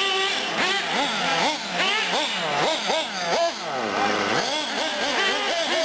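Several nitro RC cars' small two-stroke glow engines revving hard, their pitch rising and falling again and again as they race over a dirt track, with the sounds of more than one car overlapping.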